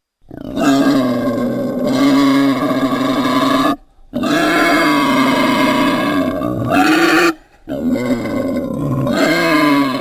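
Wild boar calling in long, drawn-out pitched calls of three to four seconds each, broken by short pauses.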